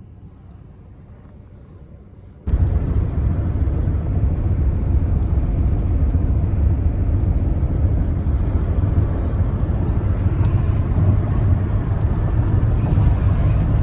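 Road noise inside a moving car's cabin: a steady low rumble of tyres and engine. It begins abruptly about two and a half seconds in, after a much quieter stretch.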